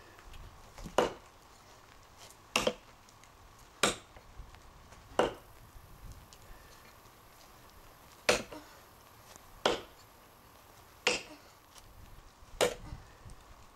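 Cold Steel Trail Hawk tomahawk chopping into a hard, seasoned elm log: eight sharp strikes, about one and a half seconds apart, with a longer pause about halfway through.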